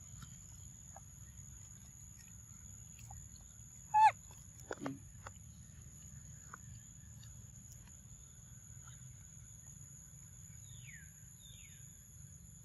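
A short, high squeaky animal call about four seconds in, followed by a quick falling squeal, over a steady high insect drone, with a few faint falling chirps near the end.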